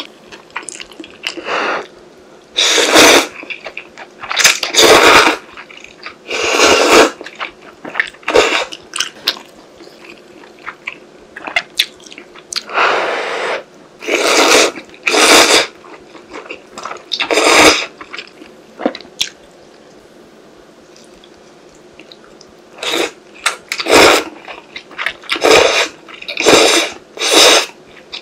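Instant ramen noodles slurped and broth sipped from a small bowl close to the microphone: a series of loud slurps, each up to about a second long, with chewing in the quieter gaps between.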